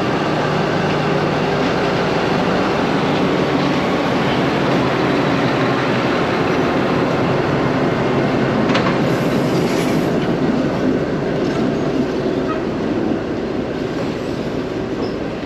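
Train passing close by: a loud, steady rumble of wheels and cars, with one sharp click about nine seconds in.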